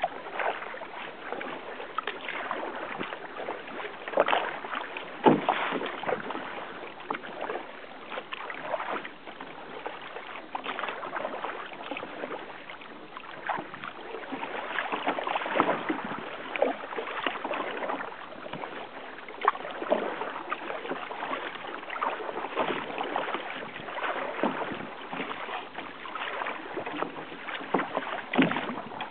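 Sea water sloshing and splashing irregularly against a kayak's hull as it moves through small waves.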